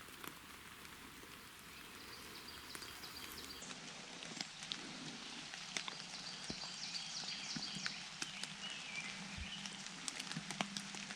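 Rain falling in the woods: a steady hiss of rain with many scattered drops ticking close by.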